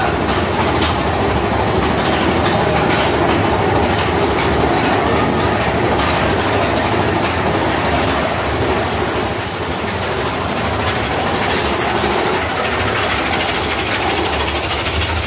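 Big Thunder Mountain Railroad mine-train roller coaster running along its track, heard from the front car: a steady rattling and clacking of wheels and cars on the rails.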